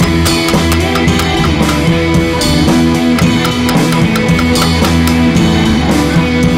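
Background music with a drum kit keeping a steady beat, and guitar.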